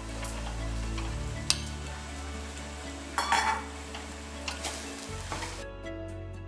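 Metal spoon stirring and scraping chopped red amaranth leaves with onion and grated coconut in a stainless steel pot, over a low sizzle; a few sharp scrapes against the pot, the loudest about three seconds in.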